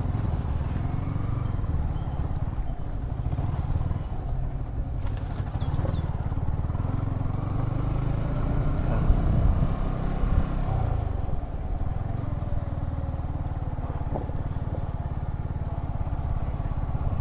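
Motorcycle engine running as the bike rides slowly along a dirt lane. Its note falls and picks up again about ten seconds in.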